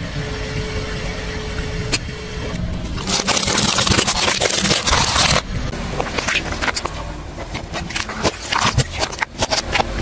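A car tyre rolling over and crushing plastic bottles filled with water beads: plastic crackling and popping, with a loud rushing burst from about three to five seconds in and a run of sharp cracks near the end.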